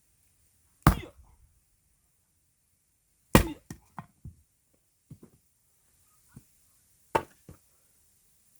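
Axe splitting firewood rounds: three heavy blows into wood, about 2.5 to 4 seconds apart, each followed by a few lighter wooden knocks.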